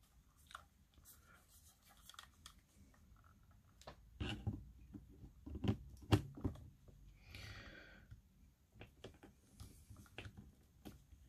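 Quiet handling noise of a lens being fitted and twisted onto a mirrorless camera body's mount: scattered small clicks, scrapes and knocks, the loudest between about four and six and a half seconds in, with a short hiss about seven and a half seconds in.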